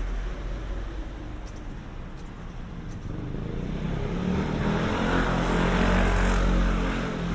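Motor scooter approaching and riding past close by, its small engine growing louder to a peak about six seconds in, then fading.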